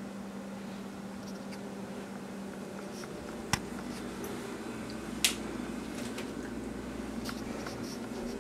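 A steady low hum stops about two and a half seconds in. Then comes the rustle and bumping of a handheld camera being carried over carpet, with two sharp clicks, the first about three and a half seconds in and the second nearly two seconds later.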